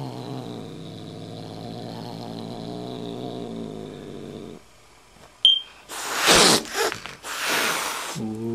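Adult cat growling, low and steady, for about four and a half seconds, then after a short pause and a brief high squeak, hissing loudly twice: a warning to a kitten, telling it who is boss.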